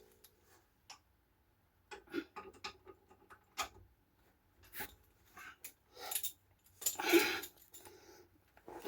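Scattered metallic clinks, clicks and clatter of hand tools and parts being handled during brake and hub work, with a longer rattle about seven seconds in.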